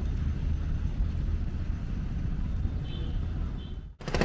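Engine of a small wooden river passenger boat (klotok) running steadily, a low rumble, dying away just before the end.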